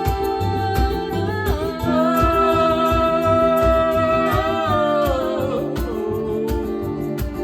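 Folk band music: acoustic guitars strumming over a steady percussion beat, under a long held melody note that slides down in pitch twice.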